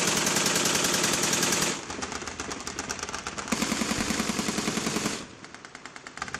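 Machine guns firing long automatic bursts: two loud bursts, each about one and a half seconds long, with quieter rapid fire going on between and after them.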